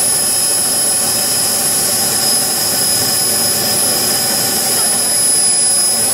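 Small model gas-turbine jet engine running steadily at idle: a dense even rush with a steady high-pitched whine over it.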